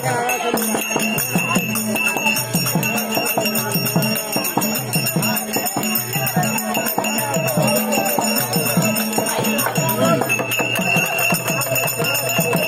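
Therukoothu folk-theatre music: a steady drone under a wavering melody, with continuous jingling bells.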